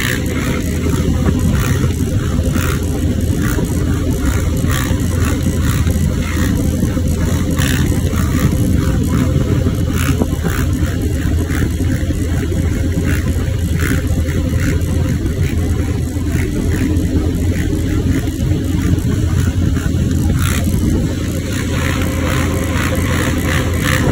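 Honda TRX450 quad's single-cylinder four-stroke engine running steadily with little change in revs.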